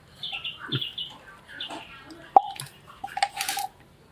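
Cleaver and metal tongs working a boiled pig lung on a wooden chopping board: scattered soft taps and knocks, with one sharp clack a little past halfway.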